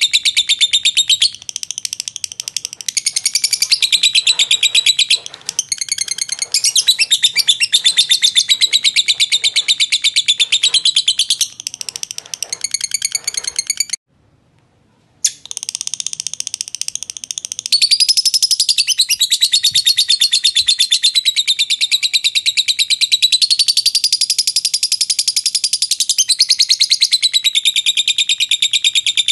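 Fischer's lovebird singing its long 'ngekek' chatter: a continuous stream of rapid, shrill, evenly repeated notes. It breaks off for about a second roughly halfway through, then carries on.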